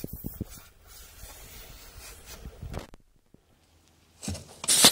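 Scraping and rubbing as a lead-filled copper canister projectile is pushed down the steel barrel of a homemade compressed-air gun. Near the end comes a sudden loud burst of air: the gun goes off when its ball-valve lever is stepped on by accident.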